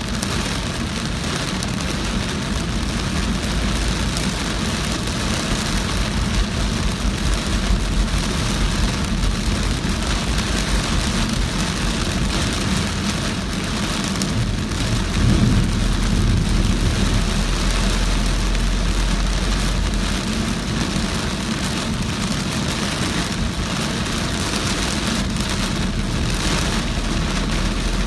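Heavy rain falling on a moving car, with the steady low rumble of the car and its tyres on the wet road underneath.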